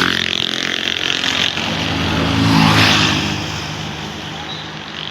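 A large vehicle, most likely a bus, driving past with its engine revving up. It grows loudest a little past halfway, then fades away.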